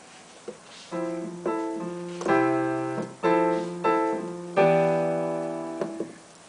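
Piano playing a short chord progression, about six chords, the last one held and fading for over a second. It demonstrates how a cadence ends the phrase: ending on C over E compared with a ii7 chord.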